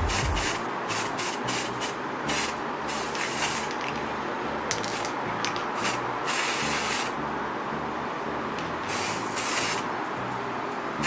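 Aerosol spray can hissing in a series of short bursts, about half a second to a second each, as green colour is sprayed onto hair. Background music with a steady bass beat runs underneath.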